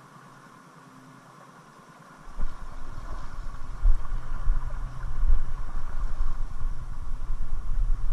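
River water running over rocks in a shallow riffle, a steady hiss. About two seconds in, gusty wind rumble on the microphone begins and stays, much louder than the water.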